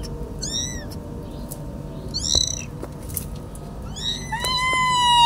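Young kittens mewing: short high-pitched mews about half a second, two seconds and four seconds in, then one long drawn-out mew near the end.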